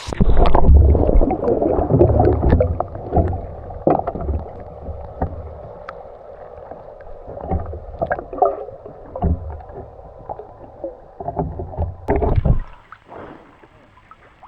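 Water splashing and bubbling, heard muffled as the camera goes into the spring water, with knocks and sloshes against the housing. It is loudest at first, has a last burst of splashing near the end, then settles down.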